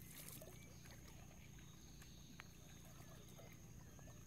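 Near silence: faint riverside ambience, a low steady rumble with a few faint chirps.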